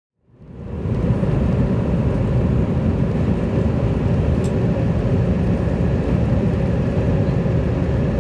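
Airliner cabin noise heard from a window seat: the steady low rumble of jet engines and rushing air, fading in over the first second.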